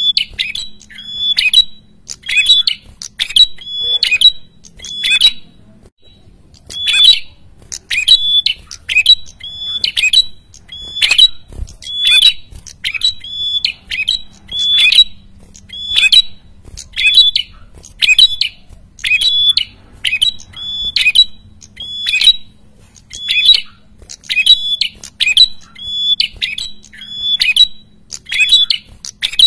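A caged prenjak kepala merah (red-headed prenjak) calling over and over in a loud, noisy run of sharp, hooked notes. The notes come a little faster than one a second, with one short break about five seconds in.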